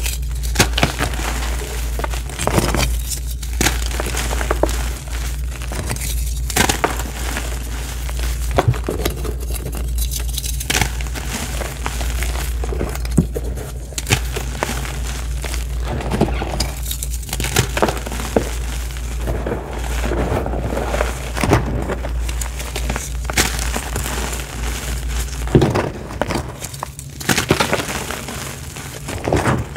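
Reformed powder blocks crushed and crumbled in the hands: continuous gritty crunching and crumbling, with many sharp snaps as the pieces break and grind into loose powder. A low hum underneath stops near the end.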